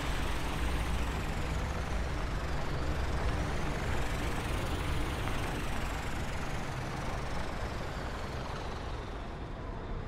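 Cartoon truck engine sound effect: a steady running rumble as the truck drives along the road.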